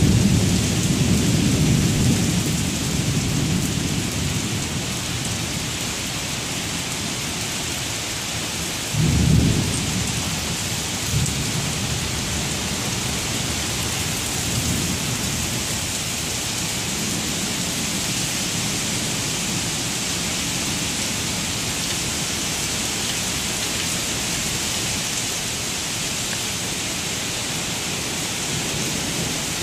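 Thunderstorm: heavy rain pouring steadily onto pavement. A low rumble of thunder fades over the first few seconds, a sudden low boom comes about nine seconds in, and a weaker rumble follows shortly after.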